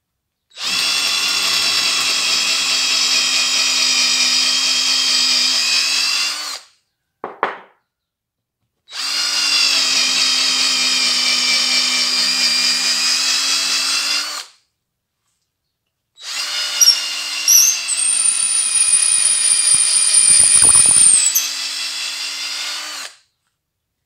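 Power drill boring a hole lengthwise into the end of a wooden branch, run in three steady bursts of about six seconds each with short pauses between. During the last burst a high squeal joins in for a few seconds, with a knock near its end.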